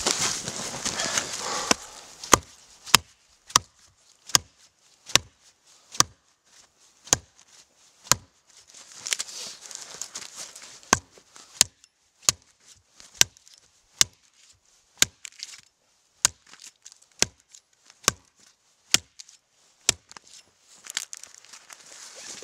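A small axe knocking into the end grain of a short log, splitting it into staves: a series of sharp wooden knocks about one a second, with stretches of rustling and cracking wood near the start and again around the middle.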